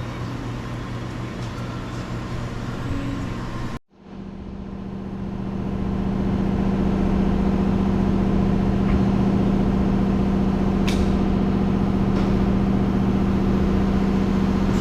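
A steady mechanical hum with a strong low tone, like an engine running at idle. It cuts out for a moment about four seconds in, then comes back louder and steady, with a few light clicks later on.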